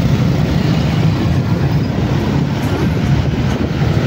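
Steady engine and road noise of a vehicle moving off from traffic lights and driving along a street, a low drone under a constant hiss.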